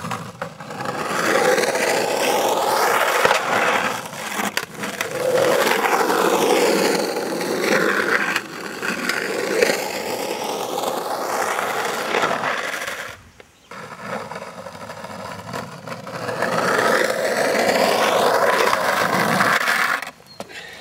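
Skateboard wheels rolling and grinding over rough concrete in two long runs, with a short break about two-thirds of the way through.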